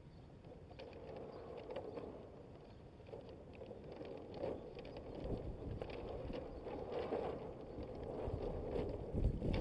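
Water washing against the hull of a Hobie Adventure Island sailing kayak under way, growing gradually louder, with wind buffeting the microphone near the end.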